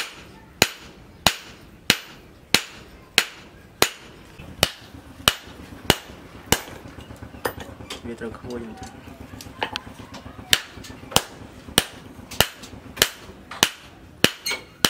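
Hand hammer striking red-hot steel on a steel post anvil while forging a wood-carving chisel blade: sharp ringing blows at about one and a half a second. The blows break off for a few seconds in the middle while the piece is repositioned, then resume at the same steady pace.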